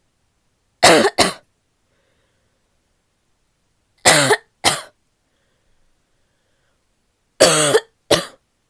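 A woman coughing: three double coughs, each pair a quick two-beat, a few seconds apart, with a barky sound.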